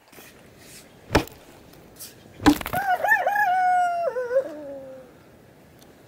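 A rooster crows once: a call of about two seconds that drops in pitch at the end. Two sharp knocks come before it, one about a second in and one just before the crow.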